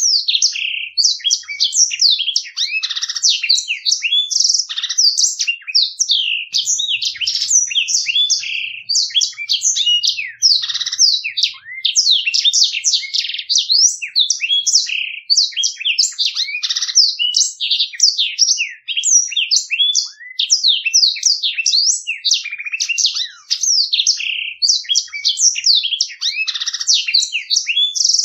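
Black-throated canary (blackthroat) singing a continuous rolling song: rapid high chirps, slurred notes and trills following one another without a break.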